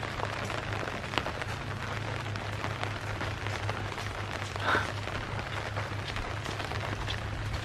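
Rain falling, with many small drop ticks and a steady low hum underneath; one brief louder sound comes a little before the five-second mark.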